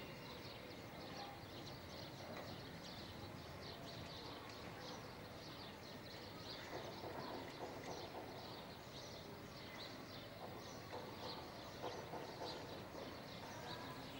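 Faint background ambience with a steady run of short, high-pitched chirps.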